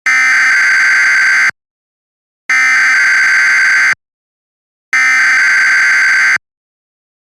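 Emergency Alert System SAME header: three loud bursts of shrill, buzzing digital data tones, each about a second and a half long and about a second apart. The bursts carry the alert's coded event type, originator and affected areas.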